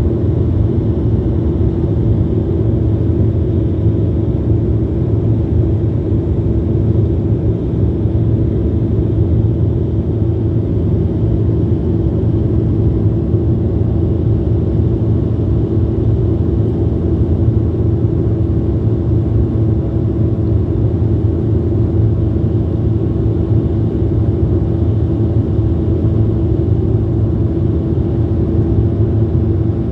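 Jet airliner cabin noise heard from a passenger seat: the engines and airflow make a steady, loud low rumble with a constant hum over it, unchanging throughout.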